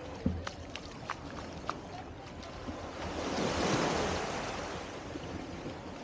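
Small waves lapping at the edge of a sandy beach, one wash swelling up about three seconds in and fading away a second or so later, with a few light splashy ticks early on.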